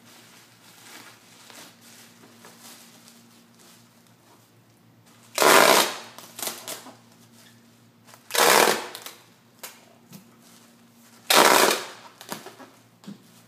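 Packing tape pulled off a handheld tape gun dispenser three times, about three seconds apart. Each pull is a loud rip of about half a second, followed by a few small clicks and crackles of bubble wrap.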